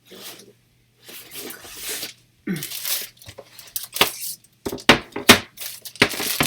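Plastic bag crinkling and rustling, then a run of sharp knocks and clacks of hard plastic as graded comic slabs are handled. The loudest knocks come about five seconds in.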